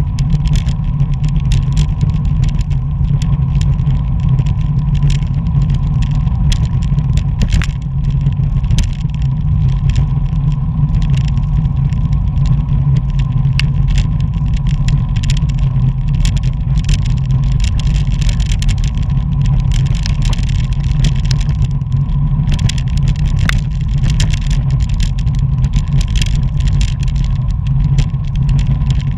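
Wind buffeting the microphone of a bicycle-mounted camera at riding speed, a steady low rumble mixed with tyre and road noise, with scattered short clicks and knocks.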